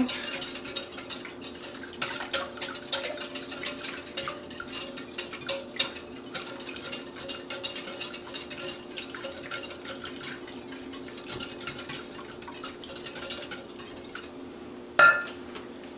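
Wire whisk beating a thin liquid batter in a glass measuring cup, its wires ticking and scraping rapidly against the glass. The whisking eases off near the end, and a single sharp clink comes about a second before the end.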